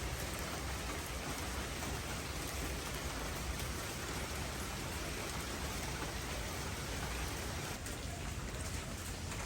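Steady rain falling, a constant even hiss of rain on surfaces.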